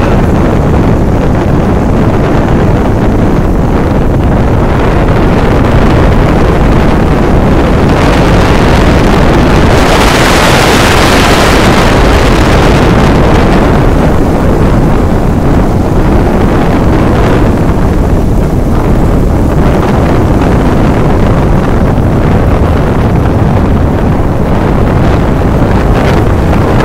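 Loud, steady wind buffeting the microphone of a moving vehicle, mixed with its low road and engine rumble. A stretch of louder, brighter hiss comes about ten seconds in.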